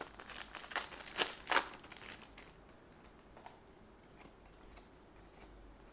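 Foil trading-card booster pack wrapper being torn open and crinkled, a dense burst of crackling rustle for the first two seconds or so, then a few faint soft ticks as the cards inside are handled.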